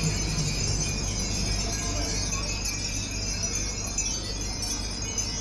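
A large array of Japanese furin wind bells tinkling together in the breeze: a dense, continuous jingling of many small bells over a steady low rumble.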